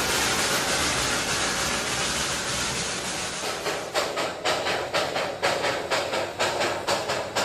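Darjeeling Himalayan Railway steam locomotive: a steady hiss, then from about four seconds in a regular beat of exhaust chuffs, about three a second.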